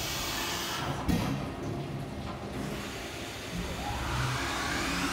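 Fadal CNC mill between cuts: a sharp knock about a second in, then the spindle spins up from about three and a half seconds in, a rising whine.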